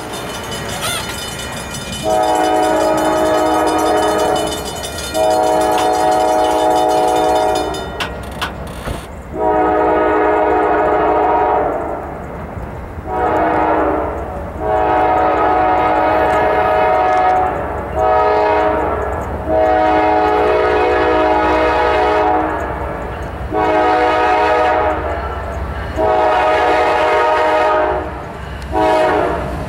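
Norfolk Southern diesel locomotive's air horn sounding a long run of blasts for a grade crossing, mostly long with a few short ones, each a steady multi-note chord. The engine's low rumble runs beneath.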